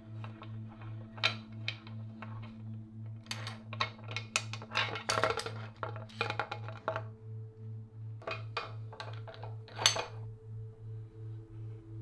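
Light metallic clicks and clinks of a bicycle headset press being threaded and fitted through a frame's head tube, in two clusters, the sharpest click near the end. Background music with a steady pulsing low beat and held tones plays underneath.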